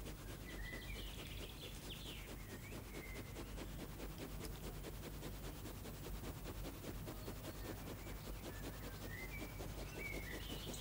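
Birds chirping faintly, with a few short calls near the start, around two to three seconds in and again near the end, over a steady low hum and hiss.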